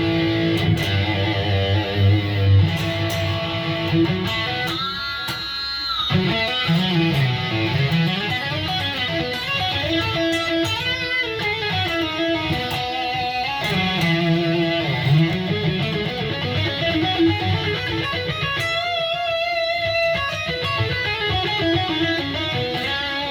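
Electric guitar with a Seymour Duncan Omega humbucker, coil-split, played direct through a Line 6 POD HD modeler. It plays a run of single notes and chords with bends, and twice holds a note with vibrato.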